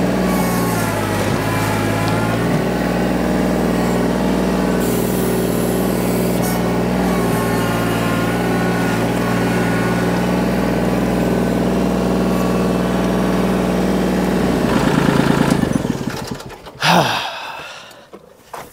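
Kubota L2501 compact tractor's three-cylinder diesel engine running steadily while the tractor drives. It rises briefly and then shuts off about sixteen seconds in, followed by one short loud noise.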